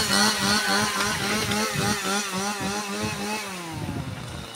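A small petrol engine running hard with a wavering, pulsing pitch, then winding down about three and a half seconds in.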